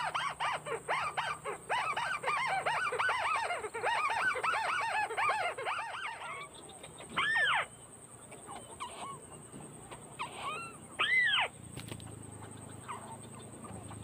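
White-browed crake calling: a fast, dense chattering series of rising-and-falling notes for about the first six seconds, then a few single louder calls spaced several seconds apart.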